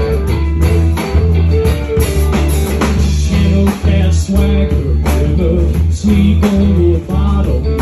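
Live rock band playing: bass guitar, drum kit, and acoustic and electric guitars, with steady drum hits under sustained bass notes.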